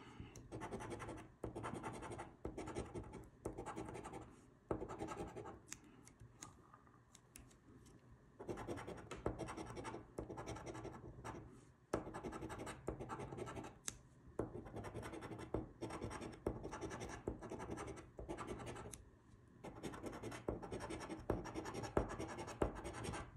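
A coin scraping the coating off a scratch-off lottery ticket in quick rubbing strokes, in bursts of a second or two with short pauses between.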